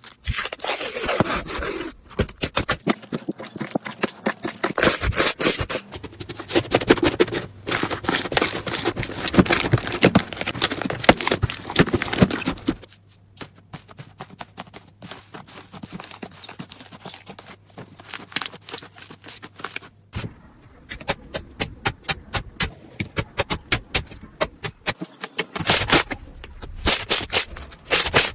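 Slime being squeezed, poked and stretched by hand, making dense crackling and popping clicks. The texture changes abruptly several times as one clip gives way to the next, with a quieter, sparser stretch in the middle.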